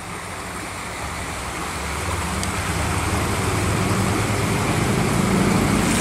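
A motor vehicle going by on the road, a low engine and tyre rumble that grows steadily louder, over running creek water.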